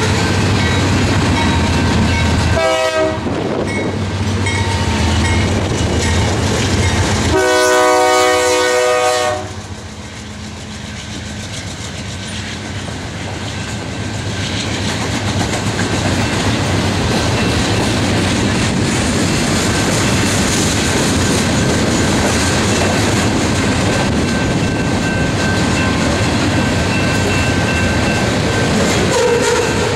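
Freight cars rolling past with steady wheel and rail clatter. A locomotive air horn sounds a short chord about three seconds in and a longer one around eight seconds. After that the rumble dips briefly, then builds again as a string of loaded hopper cars rolls by.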